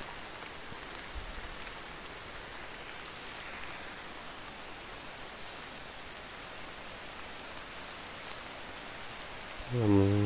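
Steady hiss of rain falling, with a few faint high chirps in the background.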